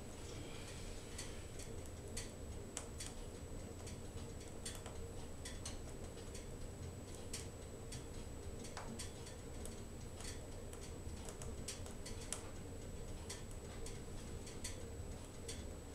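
Wood fire crackling inside a wood-burning stove: irregular sharp pops and snaps, about one or two a second, over a low steady background noise.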